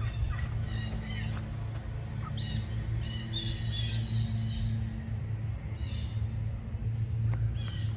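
Birds giving scattered short, high chirps over a steady low hum.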